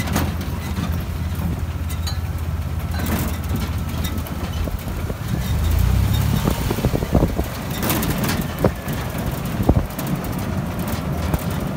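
Open WWII-era military Jeep driving over a rough, broken road surface: a steady low engine and road rumble, with sharp knocks and rattles coming in from about three seconds in as it jolts over the bumps.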